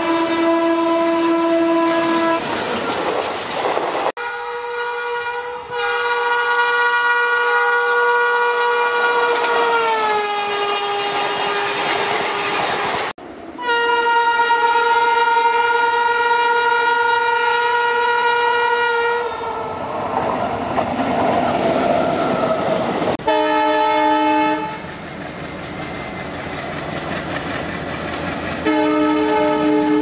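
A run of Indian Railways locomotive horns, cut from clip to clip: a diesel locomotive's multi-tone horn blast that stops after about two seconds, followed by the rumble of the passing train; then a long horn that drops in pitch partway through as the locomotive passes; then an electric locomotive's long steady horn followed by the rumble and wheel clatter of the passing train; and two short horn blasts near the end.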